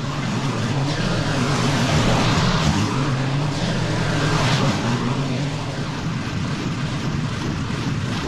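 Zero-turn mower engine running steadily while cutting long grass, with a rushing hiss over the engine note.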